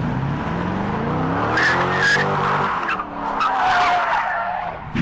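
Chevrolet Corvette's V8 revving hard, its pitch climbing over the first couple of seconds, while the tyres squeal as the car slides out of control in a spin. A second, lower tyre screech comes about three and a half seconds in.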